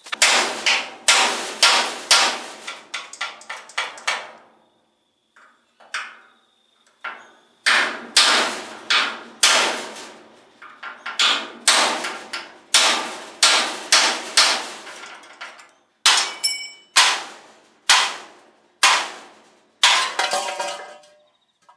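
Hammer blows on a punch driving rivets out of a 1930 Ford pickup's steel chassis rails: sharp, ringing metal strikes in runs of about two a second, with a pause of a few seconds about four seconds in.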